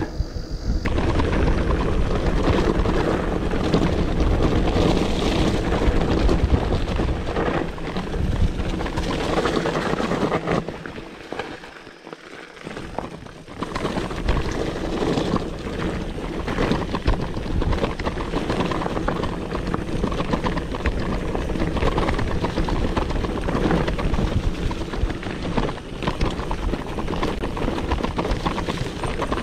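Mountain bike descending a downhill trail: wind buffeting the microphone over a steady rush of tyres on dirt, with frequent knocks and rattles from rough ground. It goes briefly quieter near the middle.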